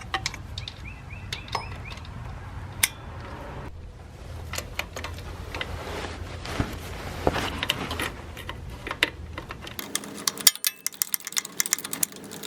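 Metal hand tools clinking and clicking as the water pump's 10 mm mounting bolts are snugged up, with a quick run of ratchet-like clicks near the end. A low steady hum underneath stops near the end.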